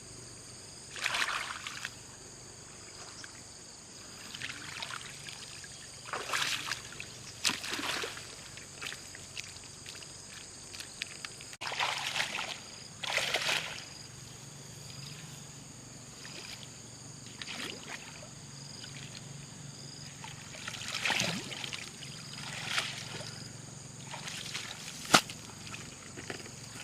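Water sloshing and splashing in irregular bursts a few seconds apart, as something is moved through shallow water, over a steady high-pitched hum.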